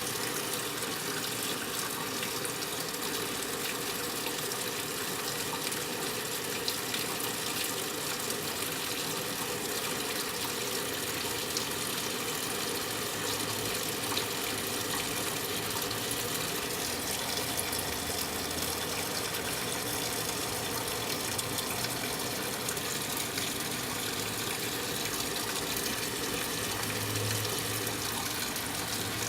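Brastemp 9 kg washing machine filling with water: a steady rush of water pouring into the tub, with a faint low hum growing near the end.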